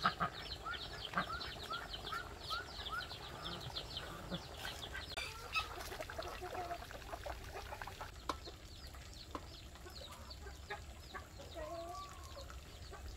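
Farmyard chickens and small birds chirping, with rapid runs of short high notes that thin out after about eight seconds. There are scattered light clicks, and a low cluck-like call comes near the end.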